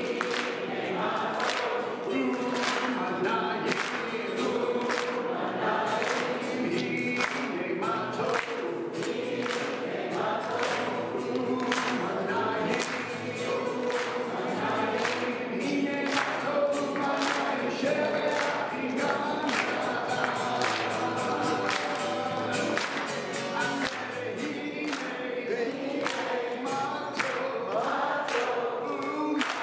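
A congregation singing a Jewish song together, led by a man strumming an acoustic guitar, with hands clapping a steady backbeat.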